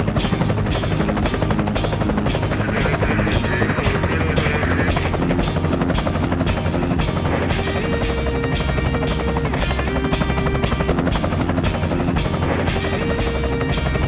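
Helicopter rotor beating with a rapid, steady chop, laid over background music.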